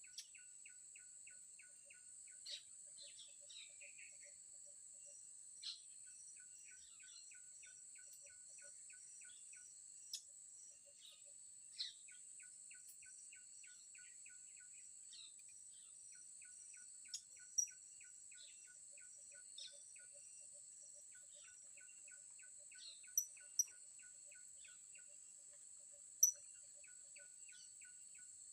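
Tropical outdoor ambience: a steady high-pitched insect drone, with runs of fast, evenly repeated pulsing notes and scattered short, sharp bird chirps every few seconds.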